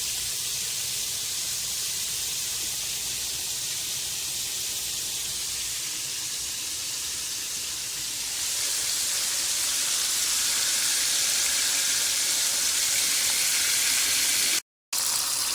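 Chicken strips frying in hot oil: a steady sizzle that gets a little louder about halfway through and cuts out for a moment near the end.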